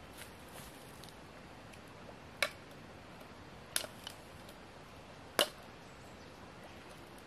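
Three sharp snaps about a second and a half apart, the middle one doubled, over a faint steady outdoor background.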